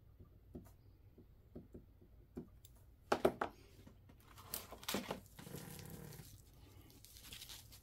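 Hands handling items and rummaging in a cardboard shipping box: a few small clicks and knocks, a sharper cluster about three seconds in, then a stretch of crinkling, rustling packaging.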